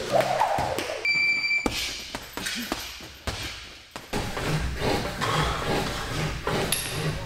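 Thuds and knocks of a workout on a mat, including gloved punches landing on a heavy punching bag, with a short ringing metallic ping about a second in.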